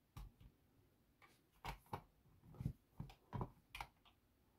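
Faint scattered light knocks and clicks as thread spools are handled and set down in a clear plastic compartment box.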